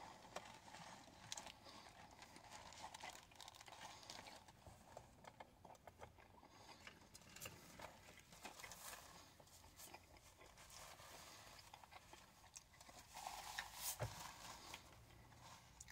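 Faint chewing of a mouthful of burger with a crisp pickle, small wet clicks and crunches close to the microphone. Near the end, a paper napkin crinkles.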